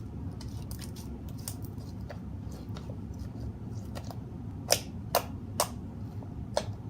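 Sticky slime being worked by hand: a run of small clicks and pops, with a few louder pops in the second half.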